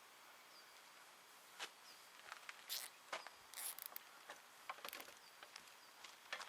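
Nylon zip ties being pulled tight: a scatter of short ratcheting clicks and quick rasps, starting about a second and a half in.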